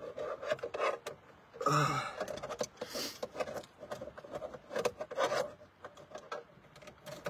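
Irregular rubbing and scraping with scattered clicks, like handling noise on a phone's microphone.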